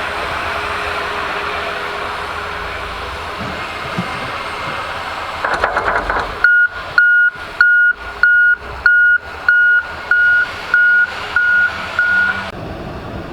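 Steady vehicle noise, then about halfway through a loud electronic warning beeper sounds ten evenly spaced high beeps, a little under two a second, before stopping.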